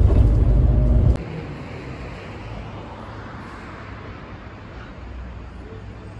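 Low rumble of a city bus's engine and road noise heard from inside the cabin, cut off sharply about a second in. It gives way to a quieter, steady outdoor hiss of street background noise.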